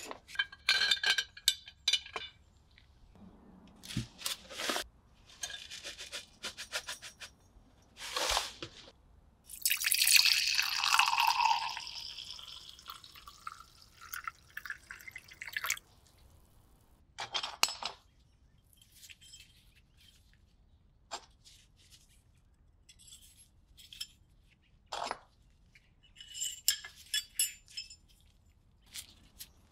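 Water poured into a small plastic container of rebar rods: about two seconds of loud splashing pour around ten seconds in, then a tapering hiss as it settles. Before and after, short clicks, taps and rustles of copper wire and steel rebar being handled.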